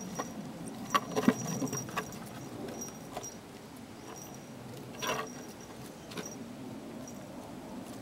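A cat playing with a foxtail grass stem on wooden deck boards: light paw taps and rustles, in a quick cluster about a second in and again about five seconds in.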